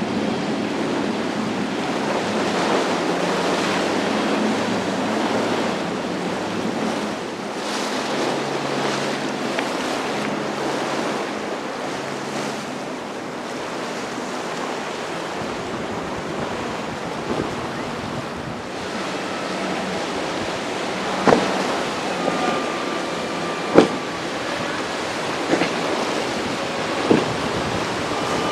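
Surf and wind at a rough ocean inlet, with wind buffeting the microphone and a low engine hum under it in the first half. In the last third, a few sharp slaps or knocks stand out.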